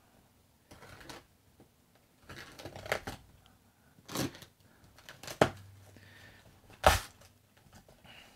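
A taped cardboard mailer being opened by hand: scattered short rustles and crinkles of packing tape and cardboard being picked at and pulled, with one sharper knock near the end.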